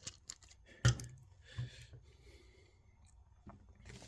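A few sharp plastic clicks and knocks from handling a Transformers action figure and its parts, the loudest just under a second in.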